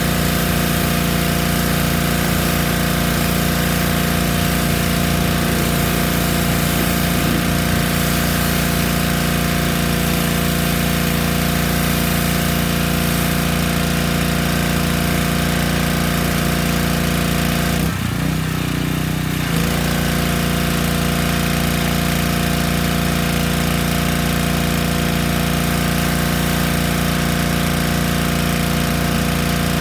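Yamaha PowerStroke 3100 PSI pressure washer's single-cylinder petrol engine running steadily, with the hiss of the water jet. About two-thirds of the way in, the hiss drops out and the engine note shifts for about a second and a half, then both carry on as before.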